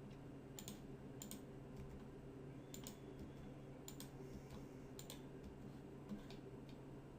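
Faint clicks of a computer mouse and keyboard, one every second or so, over a low steady hum.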